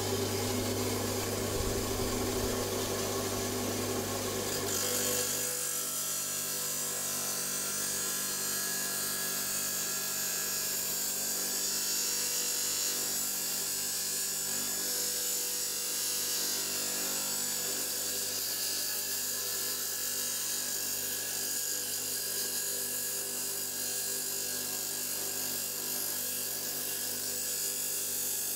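Power saw cutting open a stone, a steady grinding hiss. About five seconds in the sound turns into a stronger, higher hiss as the cut goes on.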